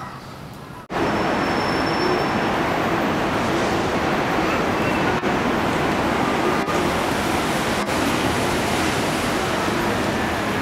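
Steady city traffic noise: a continuous wash of road traffic from busy streets and an elevated expressway. It cuts in suddenly about a second in.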